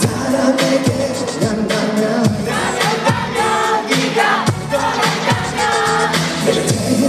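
Live pop song played loud through a concert sound system: a steady beat with a deep kick drum about every 0.7 s, and a singer's voice over it, strongest in the middle.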